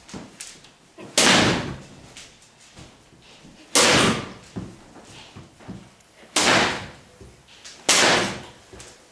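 A tennis racket striking tennis balls on forehand swings: four sharp, loud cracks about a second in, near four seconds, after six seconds and near eight seconds, each ringing briefly in the room.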